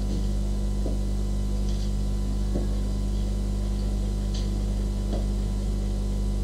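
Steady low electrical hum with its overtones, with a few faint ticks.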